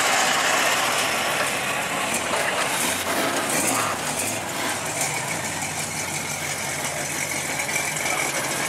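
Lowrider cars' engines running as they cruise slowly past, over a steady haze of street noise. About halfway through, a steadier engine drone sets in.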